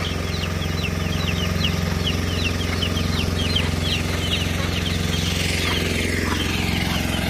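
A hand tractor's engine running steadily at an even speed, with rapid high bird chirps over it for the first few seconds.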